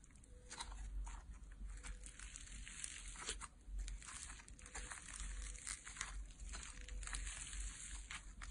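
Clear green slime coated in a fluffy white layer being squeezed, folded and stretched by hand, crackling and popping with many small clicks.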